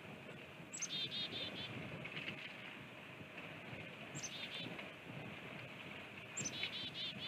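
A small songbird sings the same short phrase three times, about a second in, about four seconds in and near the end: a high note or two sliding down, then a quick run of four or five repeated notes. Other birds chirp over a steady outdoor hiss.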